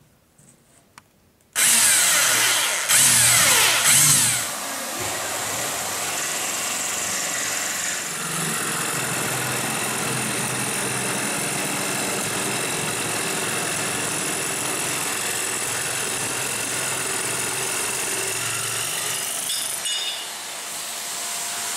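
Electric drill boring a hole through an aluminium splashback panel for about three seconds, starting about a second and a half in. A jigsaw then cuts the aluminium sheet, running steadily for the rest.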